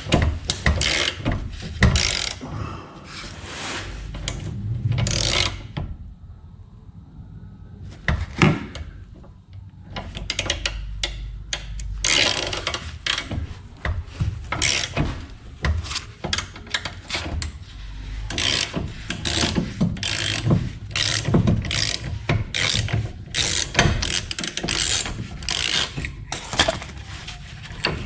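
Hand ratchet wrench clicking through repeated back-and-forth strokes, with metal knocks, as it winds a press screw to move the van's rear trailing arm bushing into place. The clicking pauses briefly about six seconds in, then carries on.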